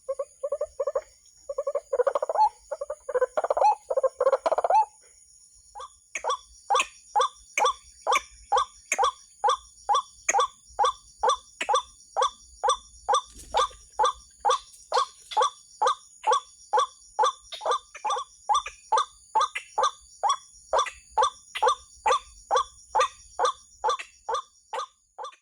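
White-breasted waterhen calls: rapid, overlapping calling for about five seconds, then after a short pause one call repeated evenly about two to three times a second.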